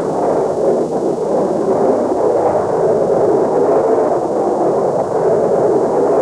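Jet aircraft in flight, a steady dull rushing noise that holds level without rising or falling.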